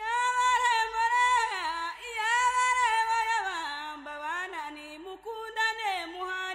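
A woman singing alone without accompaniment, in long held notes that slide between pitches, the melody gradually falling lower.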